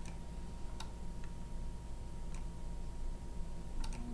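Computer mouse clicking: a few single clicks at uneven intervals and a quick double click near the end, over a faint steady hum.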